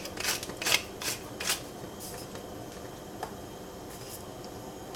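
Wooden chopsticks beating eggs in a small ceramic bowl: a quick run of about four clicks against the bowl over the first second and a half, then it stops, with only a few faint taps after.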